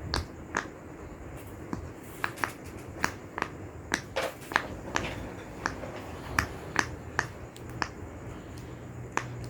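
Silicone pop-it fidget toy being popped bubble by bubble in quick succession: a run of sharp little pops, about two a second and unevenly spaced.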